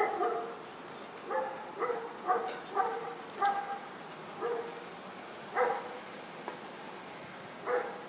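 A dog barking, about nine short pitched barks at irregular intervals.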